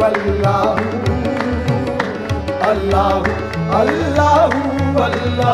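Qawwali-style devotional music: tabla drumming keeps a steady beat under a gliding melodic line.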